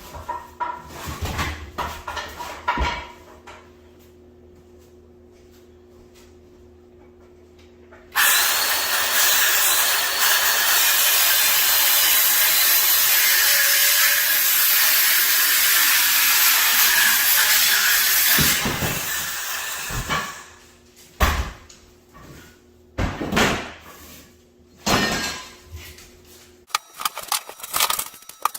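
A power tool runs steadily for about ten seconds, starting abruptly and then winding down. Knocks and clunks of handling come before and after it.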